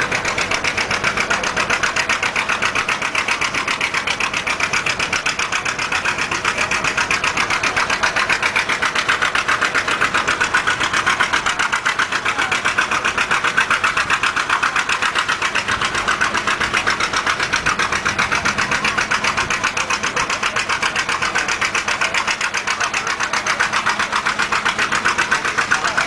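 Antique tractor engine running steadily, a fast even chug of firing pulses with no change in speed.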